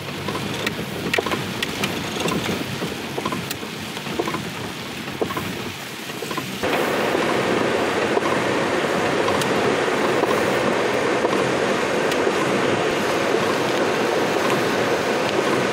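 Heavy rain drumming on a car's roof and windshield, heard from inside the moving car. About six and a half seconds in the rain noise jumps abruptly louder and denser.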